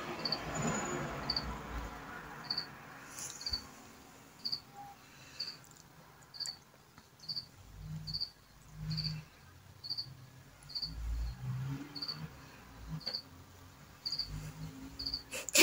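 A cricket chirping steadily: one short, high chirp a little more often than once a second. A few soft low bumps come about halfway through.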